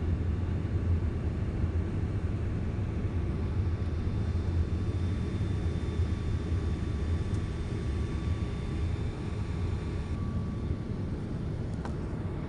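Passenger aircraft cabin noise in flight: a steady low rumble of engines and airflow, with a faint steady whine over it.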